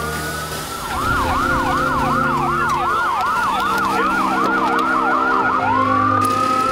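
Emergency vehicle's electronic siren in a fast yelp, about three rising-and-falling sweeps a second, switching near the end to a slower rising wail.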